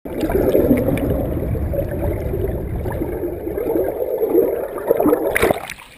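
Muffled rushing and gurgling of river water heard underwater through a GoPro's waterproof housing, a dense low rumble. Near the end there is a brief splash-like burst, and then the sound drops away sharply.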